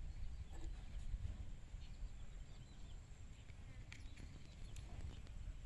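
Quiet rural outdoor ambience: a low rumble, with a few faint scattered ticks and short chirps.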